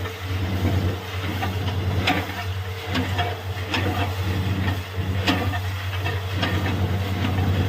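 Borewell drilling machine running with a steady low drone, with scattered sharp clicks and knocks over it.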